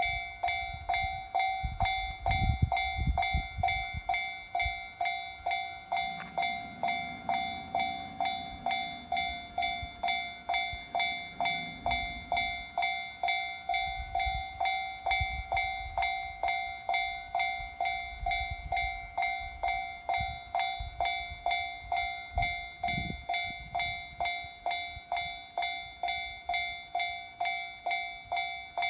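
Japanese level crossing warning bell ringing steadily at about two strikes a second. Under it a passing train's low rumble comes and goes.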